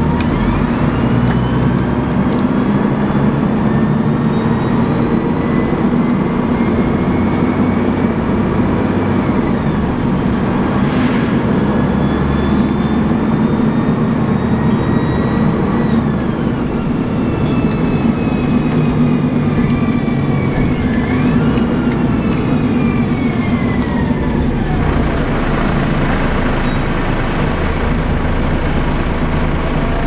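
Alexander ALX300 bus with a Voith automatic gearbox heard from inside the saloon: the engine hums steadily under the high gearbox whine known as the 'Voith Hoover'. The whine rises as the bus pulls away, drops at gear changes about ten and sixteen seconds in, then falls steadily as the bus slows.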